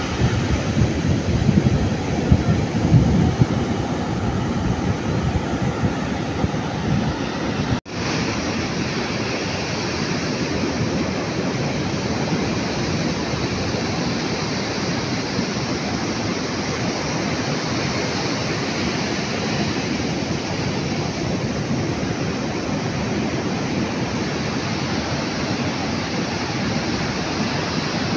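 Ocean surf breaking and washing up on a sandy beach, a steady rushing noise, with wind rumbling on the microphone in the first several seconds. The sound cuts out for a moment about eight seconds in, then the surf carries on evenly.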